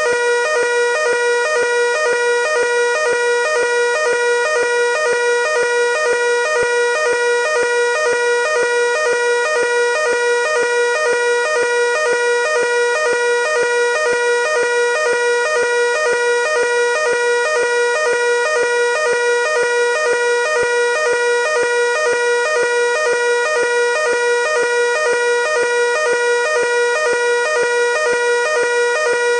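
Fire alarm evacuation signal sounding continuously: a loud electronic tone, steady in pitch, pulsing rapidly and evenly without a break.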